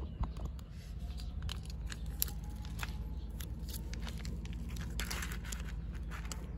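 Plastic Kalkan wet cat-food pouch crinkling as it is handled and squeezed, with scattered sharp crackles and a longer rustle about five seconds in as the food is pressed out onto a dish of dry kibble.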